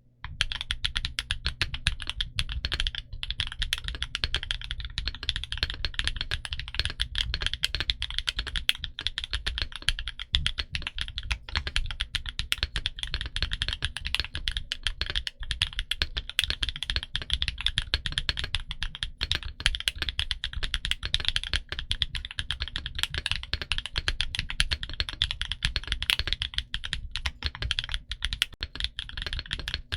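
Continuous fast typing on a Portico68 mechanical keyboard with Gateron Green Apple heavy tactile switches and Black Label Cherry-profile PBT keycaps: a dense run of keystrokes, many a second.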